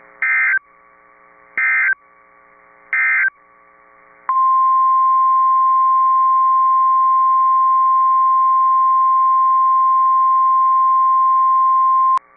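NOAA Weather Radio emergency alert signalling: three short bursts of EAS (SAME) digital data tones about a second and a half apart, then the steady 1050 Hz weather-radio alert tone held for about eight seconds and cut off with a click. The alert tone announces a warning about to be read.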